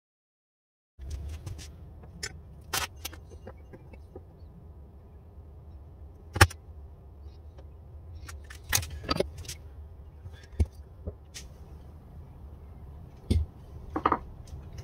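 Scattered knocks, taps and clicks of wooden blocks and small hand tools being handled on a workbench, over a low steady hum. The loudest knock comes about six seconds in.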